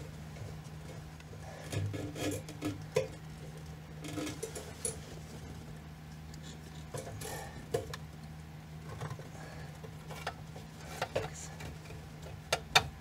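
Scattered plastic clicks, knocks and rustling as a fuel pump module is worked up and out of a car's fuel tank, over a steady low hum.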